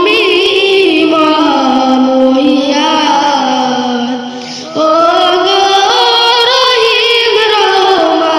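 A boy singing a Bengali Islamic ghazal into a stage microphone, unaccompanied, in long held notes with a wavering ornament. He breaks off briefly about halfway and comes back in on a higher, rising phrase.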